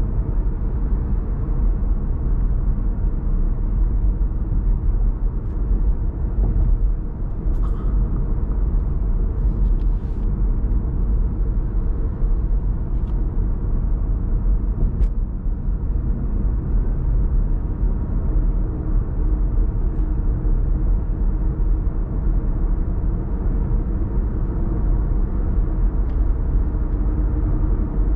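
Steady low rumble of a car cruising on an expressway, with tyre and engine noise heard from inside the cabin. A few faint ticks sound now and then.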